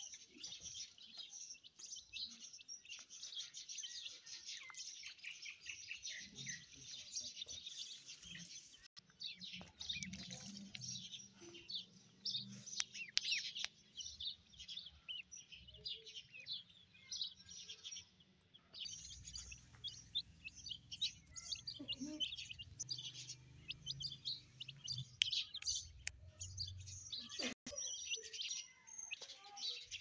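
Ducklings peeping continuously, a rapid stream of short, high-pitched calls from several birds at once, with a low rumble underneath through much of the middle and later part.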